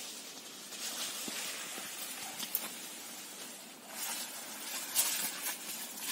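Maize leaves rustling and crackling as someone brushes through a cornfield on foot, busier from about four seconds in.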